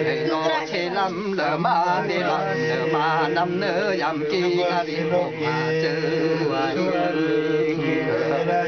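Several voices chanting together in overlapping, wavering melodic lines over a steady low held note, a Kulung ritual chant.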